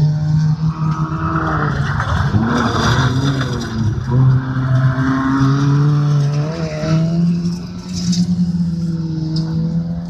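Fiat Panda autocross race cars running hard on a dirt track, engines revving at high speed, their pitch dipping and climbing a few times as the cars pass.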